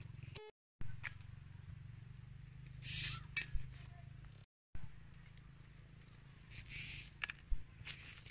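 Leaves and twigs of a small tree rustling in two short bursts as hands push through the branches, with a few light snaps, over a low steady rumble. The sound drops out completely twice, briefly.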